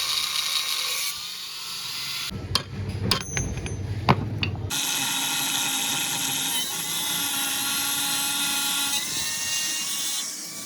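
Power tool cutting into a steel connecting rod, its steady whine broken by a few sharp metallic knocks about halfway through.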